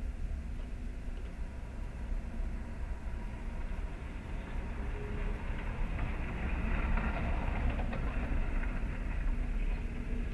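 Street traffic heard from inside a stationary car: a steady low rumble, with a passing car's engine and tyre noise swelling about six seconds in and another car coming in near the end.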